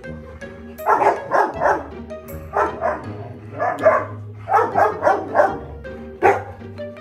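Dog barking in about six quick runs of two or three short yaps, over background music.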